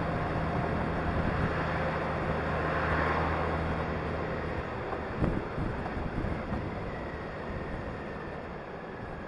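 Honda Gold Wing motorcycle riding along at steady speed, engine hum under wind and road noise. The engine note fades about halfway through, with a single brief knock just after.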